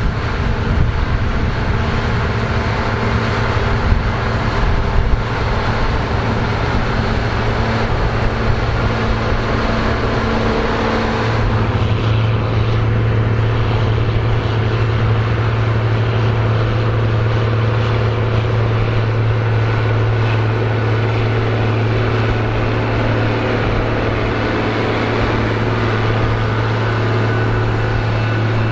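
Big farm tractor's diesel engine running steadily under load while pulling a plow. About eleven seconds in, the engine sound changes to a stronger, deeper steady hum.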